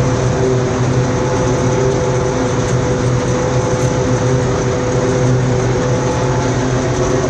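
Deutz-Fahr M35.70 combine harvester running steadily at work: a constant machine drone with a few held tones.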